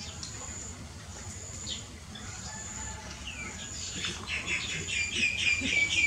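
Bird chirping: a quick run of short, falling chirps, about four or five a second, starting about three seconds in and getting louder toward the end.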